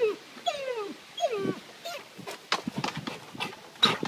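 Black Labrador whining in high calls that each slide down in pitch, three in the first second and a half, then a run of short sharp sounds in the second half. It is the dog's excited whining at its owner appearing at the fence.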